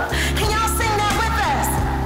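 Multitracked a cappella gospel singing by one woman's voice layered in several parts: a lead line over sung harmonies and a steady low bass part. The lead slides down about one and a half seconds in.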